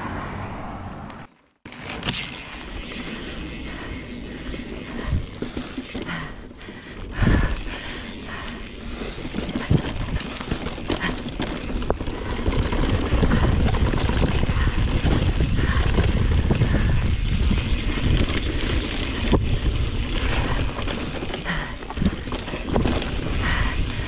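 Mountain bike riding down a dirt trail: tyres rumbling over the ground, the bike rattling and knocking over bumps, and wind on the microphone. It starts after a short gap and gets louder about halfway through.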